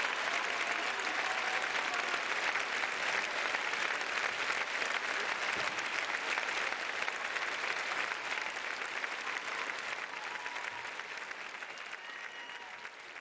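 Concert audience applauding steadily, fading out over the last few seconds.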